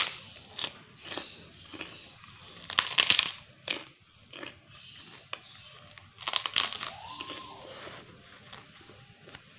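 A large white kerupuk cracker being bitten and chewed, crunching crisply in three bursts: at the start, about three seconds in, and about six and a half seconds in. Quieter chewing follows each bite.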